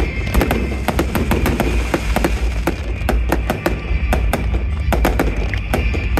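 Fireworks going off in a rapid, irregular barrage of sharp cracks and bangs, several a second, over music playing with the display.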